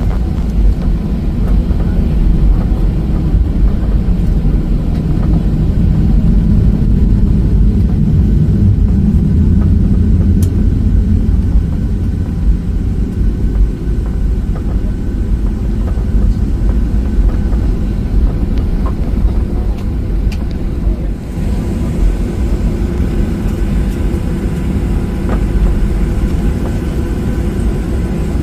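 Jet airliner cabin noise during takeoff and climb: a loud, steady low rumble of engines and airflow, its tone shifting about three-quarters of the way through.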